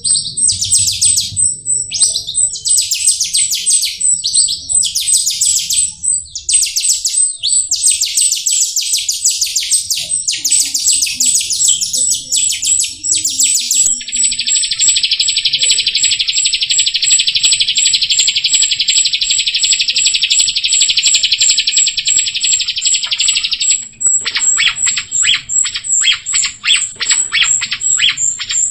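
Jalak rio-rio starling singing: fast high chattering trills, then one long unbroken buzzy trill in the middle, then a run of rapid clicking notes near the end. An even, rapid high-pitched ticking runs behind the song throughout.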